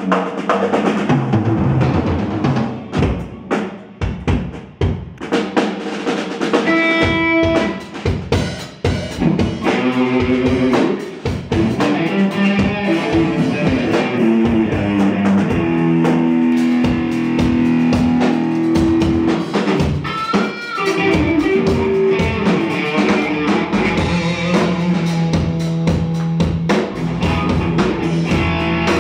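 Live rock band playing: electric guitar over a drum kit and bass guitar, with busy drum strikes in the first few seconds, then long held guitar notes and a pitch bend about twenty seconds in.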